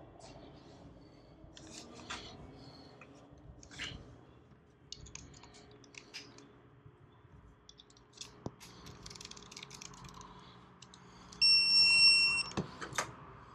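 Light clicks and clinks of tools and engine parts being handled. Near the end, an electronic digital torque wrench gives one steady beep lasting about a second, followed by two sharp clicks.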